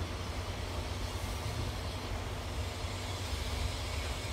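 Distant C11 tank steam locomotive moving slowly: a steady low rumble and hiss with a faint constant hum, with no distinct exhaust beats.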